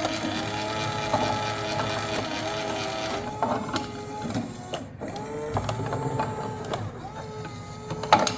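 Toy arcade claw machine running, its small electric motors whirring in several stretches as the claw is steered toward a prize, with occasional clicks.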